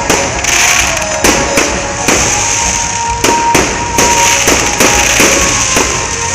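Aerial fireworks bursting in quick, irregular succession: about a dozen loud bangs, each followed by a crackling hiss.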